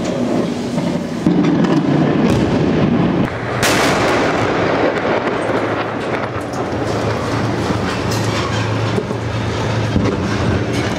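Continuous rumble of a bombardment by artillery and tank fire, with a steady mechanical drone underneath and a sharp blast about three and a half seconds in.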